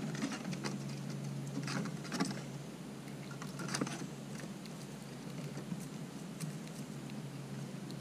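Eastern gray squirrel chewing food up close: irregular sharp crunching clicks that come in small clusters, over a steady low hum.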